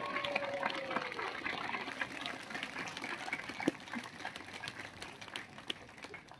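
A held voice falls in pitch and trails off in the first second or so. Then a crowd's low murmur, dotted with many small crackling clicks, fades away.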